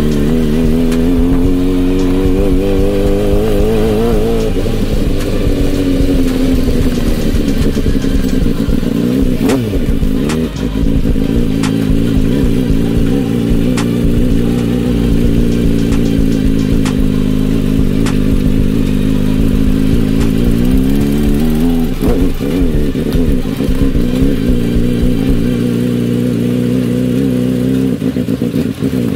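Suzuki motorcycle engine in a homemade go-kart running under way: the revs climb and fall back a few seconds in, hold steady, then rise again about two-thirds of the way through. Occasional knocks and rattles.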